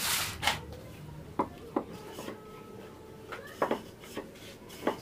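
Wooden rolling pin rolling and knocking on a wooden board as rice-flour dough is rolled out into a roti, giving a handful of short knocks.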